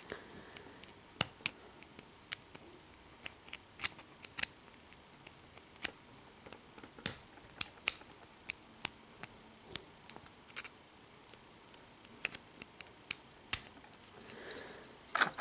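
Scattered small metallic clicks and scrapes of a circlip being worked off the core of a FAB 50 euro cylinder lock, irregular and sharp with short quiet gaps between them.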